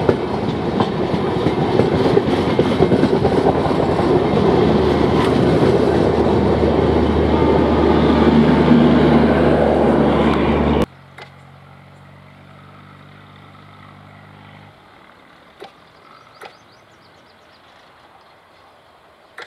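Passenger coaches of an express train rolling past close by, a loud rumbling clatter of wheels on the rails, which cuts off suddenly about eleven seconds in. After that only a faint low hum for a few seconds and a few faint clicks.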